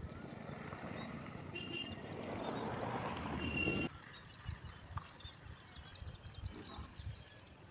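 Outdoor rural sound: a broad rush of noise grows louder and cuts off abruptly about four seconds in. After that, small birds chirp faintly, with a few soft thumps.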